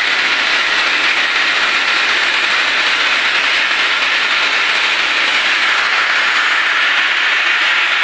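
Steam jetting under pressure from a valve at the top of a wood-fired vertical steam boiler: a loud, steady hiss.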